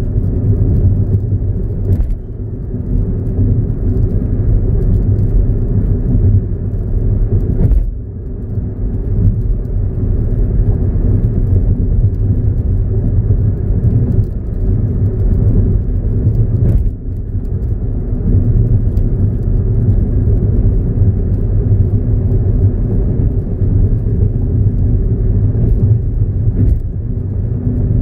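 Car driving along a highway: a steady low rumble of engine and road noise, with a few brief dips in level.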